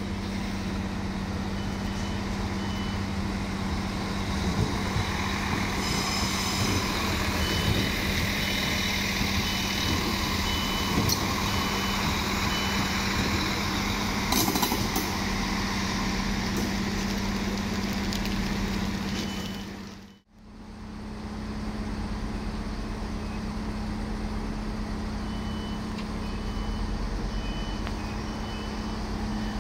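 HLB regional diesel railcars (Alstom Coradia LINT) running through the station: a steady engine hum with rail and wheel noise as one passes close, and some clattering about halfway through. A high beep repeats a little more than once a second through much of it. The sound drops out briefly about two-thirds through, then another railcar approaches with the same beeping.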